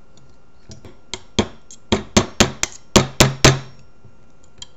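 Small hammer tapping a pin into a Crosman PumpMaster 760 air rifle, metal on metal, with the gun resting on a steel weight plate. About nine quick taps roughly a quarter second apart, the last few the loudest.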